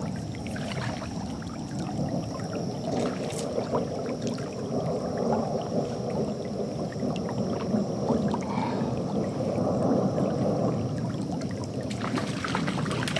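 Creek water sloshing and churning around a wader's legs as he wades steadily upstream, swelling and easing with his strides. A faint steady high whine runs underneath and stops near the end.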